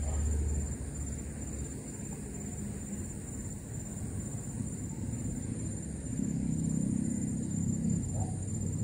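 Insects trilling steadily, a continuous high pulsing buzz, over a low rumble that swells for a couple of seconds near the end.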